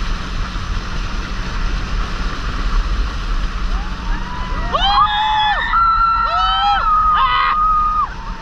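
Rushing wind and water spray around a banana boat being towed at speed. From about halfway in, several riders scream in long high-pitched yells that overlap, then stop near the end.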